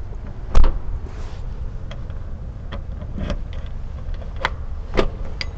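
Handling noise from tools and lock hardware: a few scattered sharp clicks and knocks, the loudest about half a second in, over a steady low rumble.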